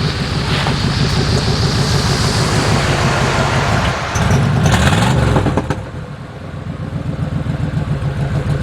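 Motor vehicle engine running on the road with wind and road noise; the engine revs up and back down a little past the middle, and the sound eases for a moment afterwards.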